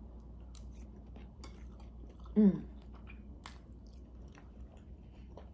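A person chewing a mouthful of soft shredded meat, with small wet mouth clicks. About two and a half seconds in comes one short, falling 'mm' hum.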